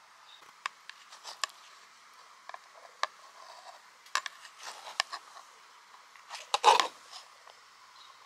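Metal spoon clinking and scraping against a bowl as food is scooped: scattered sharp clicks, with a louder, longer scrape about two-thirds of the way in.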